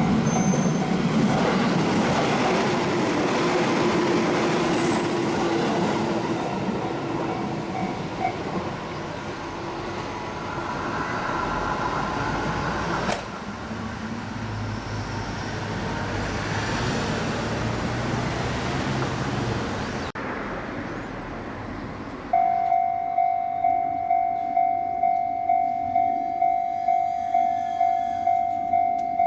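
A train passing over a level crossing, its running noise loud, with the crossing's warning bell ringing faintly beneath it for the first several seconds. The train noise then drops abruptly to a quieter rumble. About 22 seconds in, a Japanese level-crossing warning bell starts ringing loudly, pulsing about twice a second.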